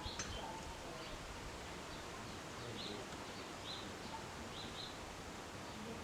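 Steady wind noise, with a bird repeating a short high chirp every second or so.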